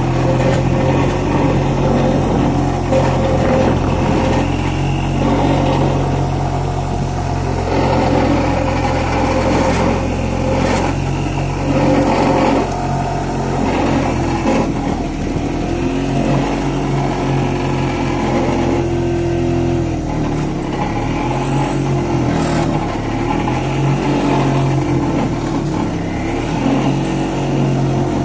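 Excavator-mounted vibratory pile driver running and shaking a long steel pile down into the ground, over the excavator's diesel engine: a loud, steady hum whose pitch swings up and down repeatedly in the second half.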